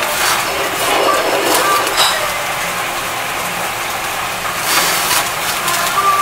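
Meat sizzling and crackling on a tabletop gas yakiniku grill, with fat flaring up in the flames under a steady hiss. There is a sharp click about two seconds in.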